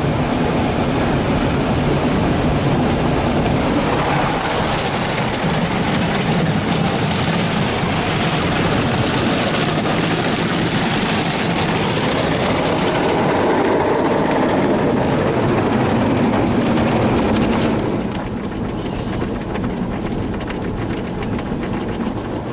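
Ryko Softgloss Maxx rollover car wash scrubbing a truck with its cloth brushes and wheel scrubbers, a dense steady swishing and rumbling heard from inside the cab. About eighteen seconds in it turns quieter and duller.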